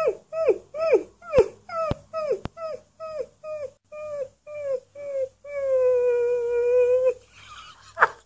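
Alaskan Malamute puppy howling: a run of short yips that fall in pitch, about two a second, then one long held howl. A few sharp clicks come in the first couple of seconds.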